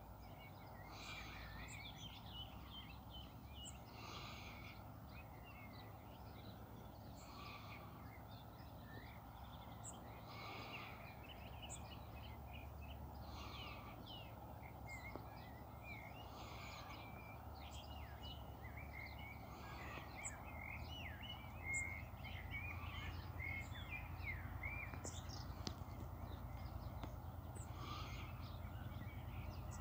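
Several birds chirping and calling in a busy overlapping chorus, with a steady low rumble underneath that grows slightly louder over the last third.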